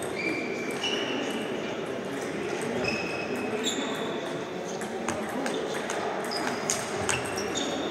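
Table tennis rally: a celluloid-type ball bouncing on the table and struck by rubber paddles, an irregular run of short high pings and sharp clicks that echo in the large hall.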